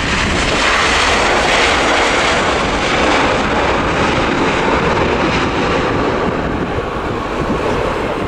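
Boeing 787-8 Dreamliner's jet engines in reverse thrust during the landing roll-out: a loud, steady roar that swells in the first second or so, then slowly eases off.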